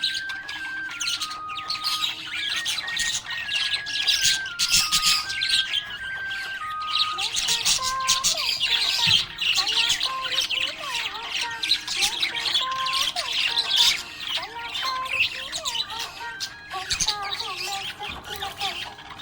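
Budgerigar chirping and warbling in a dense, unbroken stream of quick twittering notes and short squawks.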